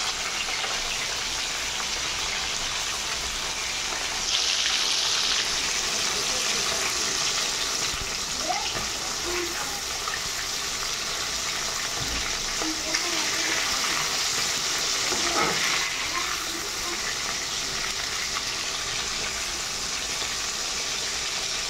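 Pieces of katla fish deep-frying in hot oil in an aluminium kadai: a steady, dense sizzle that swells briefly about four seconds in, with the pieces being turned now and then with a metal spatula.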